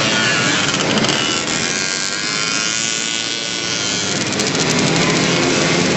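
Several racing mopeds' small engines buzzing at high revs, their pitch swelling and falling as they pass.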